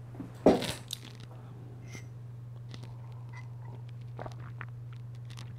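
A loud clatter about half a second in, followed by scattered faint clicks and taps, over a steady low hum.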